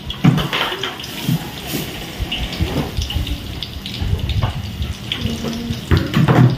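Water running and splashing, with irregular knocks and clatter of things being handled.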